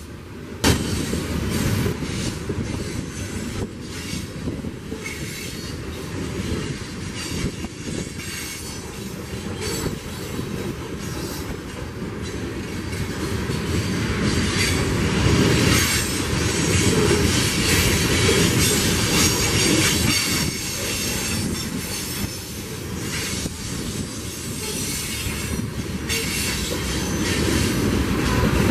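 Freight train of covered hopper cars rolling past, steel wheels clattering over the rail with some high wheel squeal, louder around the middle and again near the end.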